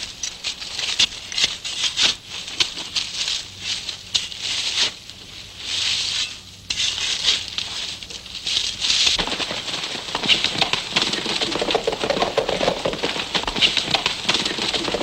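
Shovels digging into dry, stony ground: a continuous run of irregular scrapes and crunches as the blades bite and soil is thrown aside.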